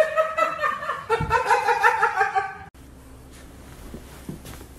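A person laughing, high-pitched and in quick repeated pulses, cut off suddenly a little under three seconds in. Faint room noise follows.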